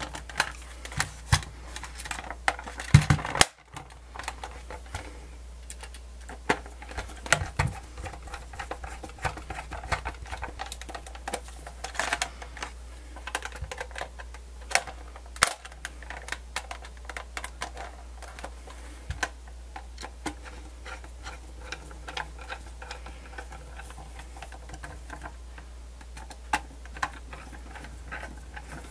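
Irregular small clicks and taps from a screwdriver driving screws into a Sony D-142CK Discman's plastic casing while it is handled, with a louder cluster of clicks about three seconds in.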